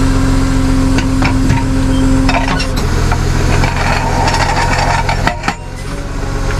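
Tow truck's auto-loader wheel lift running as it lowers a car back onto the road: a steady engine and hydraulic hum with a held tone that stops about three seconds in, then a lower steady hum. Metal clicks and clunks from the wheel-lift arms sound through, with a sharp double knock a little after five seconds.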